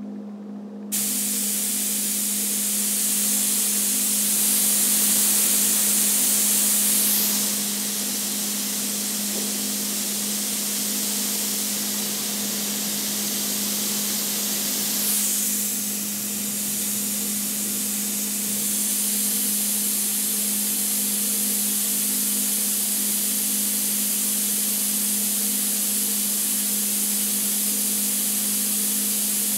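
Iwata Eclipse airbrush triggered wide open on compressed air: a steady, loud hiss of air from the tip that starts about a second in and holds, with a steady low hum underneath.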